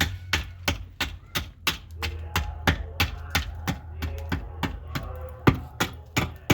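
A run of even, sharp knocks, about three a second, over a low steady hum.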